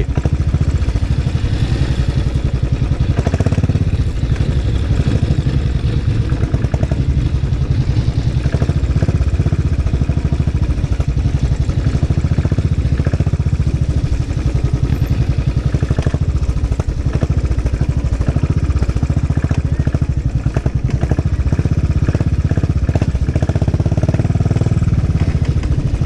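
Royal Enfield Classic 500's single-cylinder engine running steadily as the motorcycle is ridden slowly, its exhaust a fast, even stream of firing pulses.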